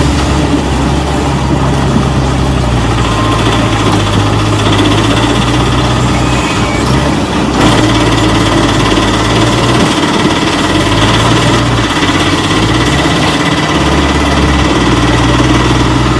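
A motor running steadily, with a low hum that drops and rises in pitch a few times.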